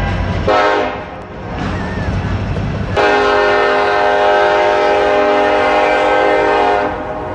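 Train horn blowing: a short blast about half a second in, then a long held blast from about three seconds in until near the end, over the rumble of the passing train.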